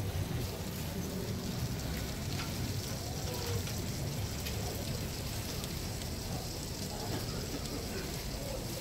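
Eggs, bacon and cabbage sizzling on a hot flat-top griddle: a steady frying hiss with scattered faint pops.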